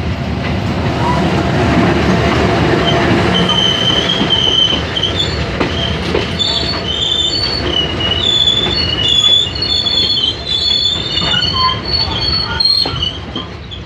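Passenger train passing close by on the adjacent track: its coaches roll past with a loud steady rumble, and from about three seconds in the wheels give repeated high squeals.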